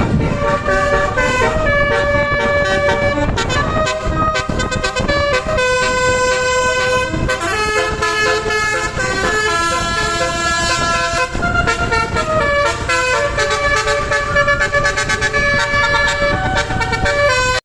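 A bus's multi-trumpet 'basuri' telolet horn playing a fast melody in stepped, sustained notes, with a sharp rhythmic pulse running through it.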